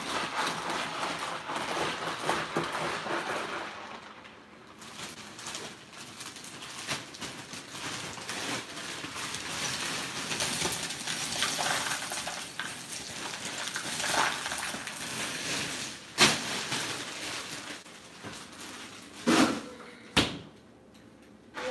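Ice cubes clattering as a long metal spoon stirs them through a large plastic container of iced fruit drink, with scattered sharper knocks of the spoon and ice, a few loud ones in the last third.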